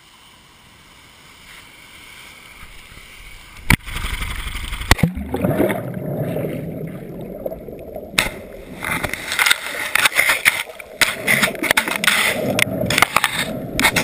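A GoPro's microphone sealed in its waterproof housing, going under water in the surf. Muffled water noise swells after a sharp click about four seconds in, then many sharp knocks and clicks as the housing is tossed against the sandy bottom.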